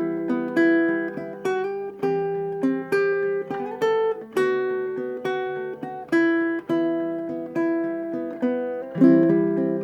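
Kala KA-SBG baritone ukulele, with a solid spruce top and laminated mahogany back and sides, playing a tune of plucked notes and chords, each ringing and fading. A louder, fuller chord comes near the end.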